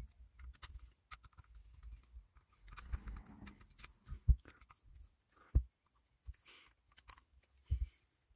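Small clicks and ticks of a precision screwdriver working the screws of a camera lens's metal bayonet mount, with hands handling the lens, played three times fast. A few louder knocks stand out about four, five and a half, and near eight seconds in.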